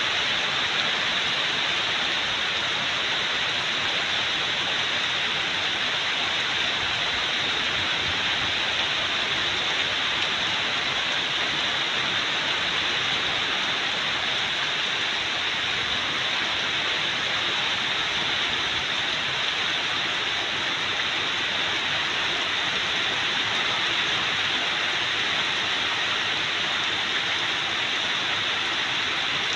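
Heavy tropical storm rain falling steadily on garden foliage and the ground, a dense, even hiss with no breaks.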